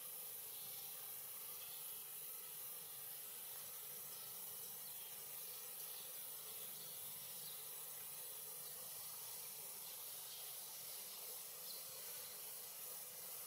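Steady faint hiss, even throughout, with no distinct calls or bites standing out.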